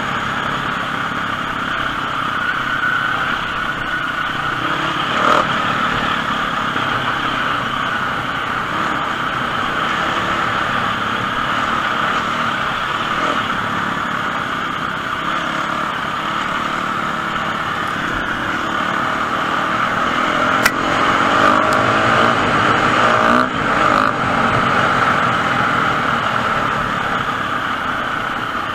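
Enduro motorcycle engine running steadily while being ridden, with riding noise mixed in; it grows a little louder about two-thirds of the way through, with a couple of sharp knocks.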